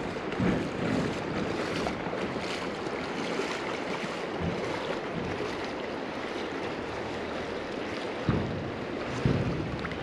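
Creek water rushing steadily, with a few low dull knocks about half a second in and twice near the end.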